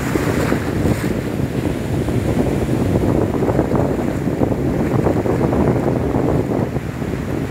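Wind blowing across the microphone as a steady low rumble, over the wash of surf breaking in the shallows.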